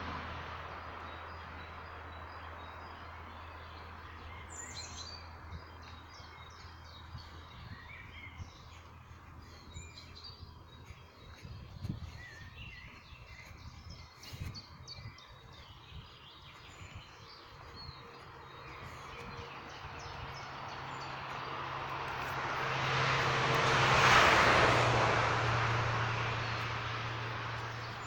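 Small birds chirping and singing on and off. A vehicle passes, growing louder to a peak about three-quarters of the way through, then fading away.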